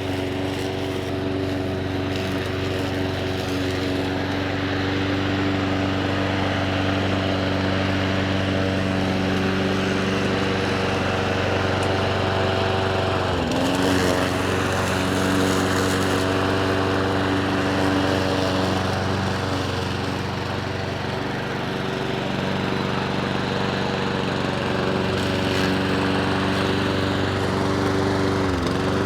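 Petrol lawn mower engine running steadily. It briefly drops in speed and recovers twice: about halfway through, and again near the end.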